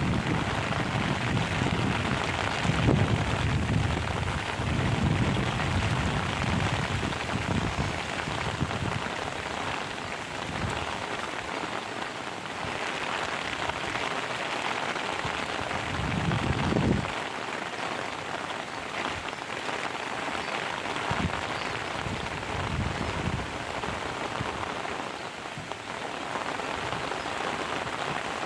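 Heavy rain falling steadily, with low rumbles during the first several seconds and again briefly past the middle.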